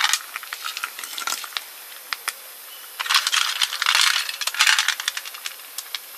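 Snail shells clinking and rattling as they are dropped into a cooking pot, in scattered sharp clicks with a dense cluster about three to five seconds in.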